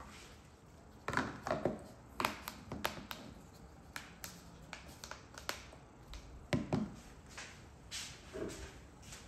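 Kitchen work sounds: an irregular run of sharp clicks, taps and clinks of utensils and dishes being handled, a few of them ringing briefly.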